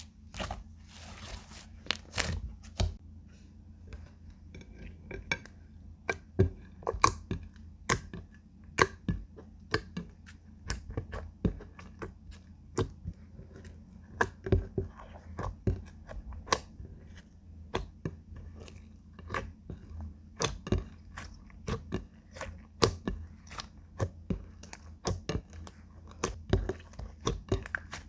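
Clear slime being kneaded and pressed by hand, making irregular sticky clicks and pops, about one to three a second.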